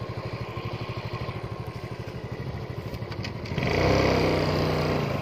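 Small motorcycle engine running steadily as the bike rides along, with a fast even pulse. It gets louder about three and a half seconds in.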